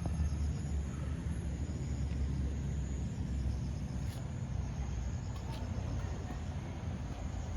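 Outdoor park ambience: a steady low rumble with faint, thin, high insect trills held steadily above it, the sparse remains of a summer insect chorus.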